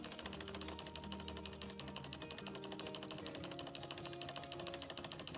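Home sewing machine running fast and steadily for free-motion embroidery, its needle strokes a rapid, even rattle. Background music with held notes plays underneath.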